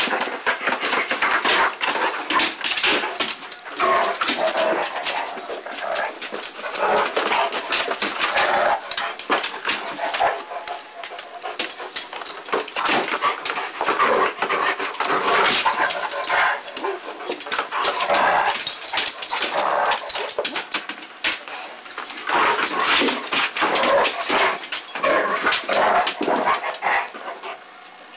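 A dog whining and barking as it plays with a basketball, with many knocks and scuffs as its paws and claws bat the ball across a parquet floor.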